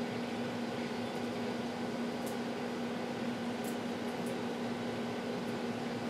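Steady mechanical hum with a low steady tone under an even hiss, like an air conditioner or fan running, with a few faint, short high ticks.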